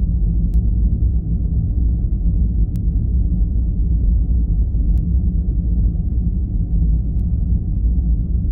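Deep, steady rumbling drone, a space-sound sonification presented as the 'sound' of one of Earth's quasi-satellites. It cuts off abruptly right at the end.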